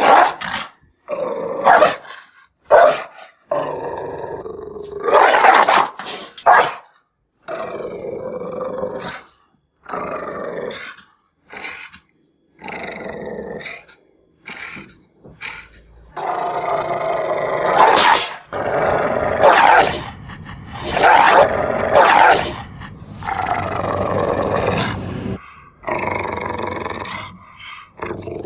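Angry dog barking and growling: a series of short, sharp barks and longer growls, broken by brief gaps.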